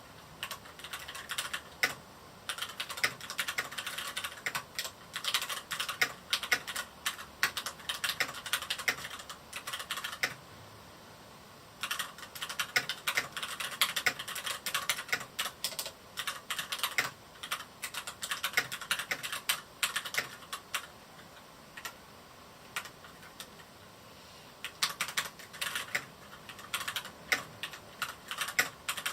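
Typing on a Varmilo Miya68 mechanical keyboard with Cherry MX Red linear switches: fast runs of key clicks, with a pause of about two seconds about a third of the way in and only a few scattered keystrokes for a few seconds past the middle.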